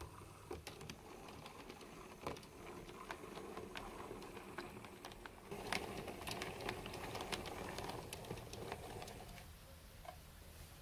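OO gauge model train running: a small electric motor hums while the wheels of the locomotive and four-wheeled wagons click irregularly over rail joints and points. The running noise is loudest in the middle, then fades near the end.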